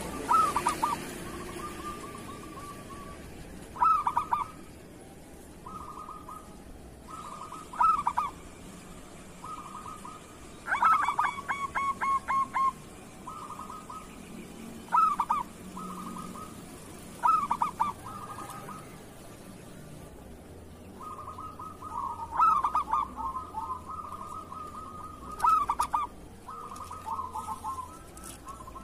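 Zebra doves cooing: short bursts of rapid, staccato coo notes near 1 kHz, repeated every couple of seconds, with a longer quick run of notes about eleven seconds in. Fainter cooing phrases fill the gaps between the loud ones.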